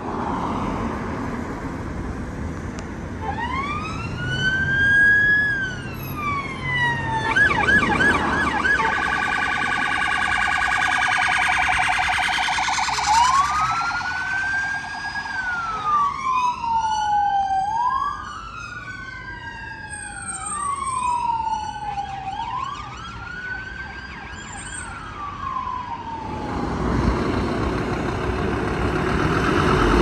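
Emergency vehicle sirens: a wail rising and falling slowly, switching briefly to a fast yelp and then a steady pulsing tone before wailing again. For a few seconds two wails sound out of step. Near the end the sirens stop and a vehicle's engine and road noise swells loudly.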